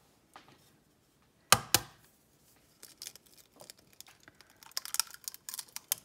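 A large brown hen's egg cracked with a sharp double knock about a second and a half in, then its shell crackling in a run of small clicks as fingers pry it apart.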